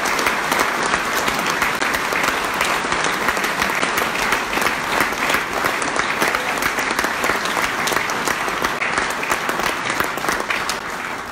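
A large audience applauding: dense, steady clapping that dies away near the end.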